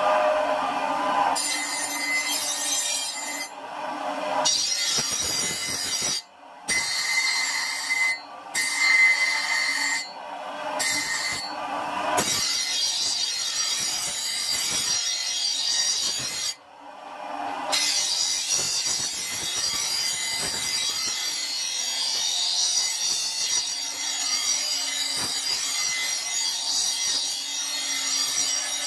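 Bench grinder's abrasive stone wheel grinding a spring-steel knife blade: a steady, harsh grinding that cuts out abruptly several times in the first half, then runs on unbroken.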